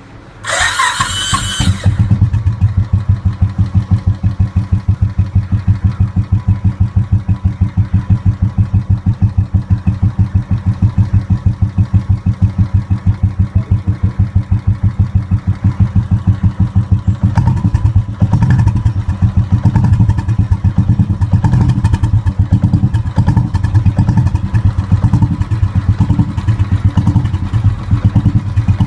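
Royal Enfield Classic 350's single-cylinder engine breathing through a short-bottle 'dholki' aftermarket silencer: a brief whine of the starter in the first two seconds, then the engine catches and idles with a steady, loud thumping of several beats a second, the beat a little less even from the middle on.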